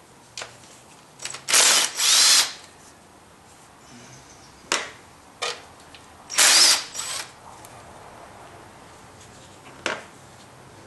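Cordless drill with a socket spinning off the valve cover retaining nuts. Two short runs come back to back about a second and a half in and another about six seconds in, each with a motor whine, with a few light clicks of the socket and nuts between.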